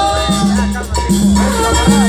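Live Mexican banda music from a large brass-and-wind band: a line of repeated, held bass notes under wavering melody lines.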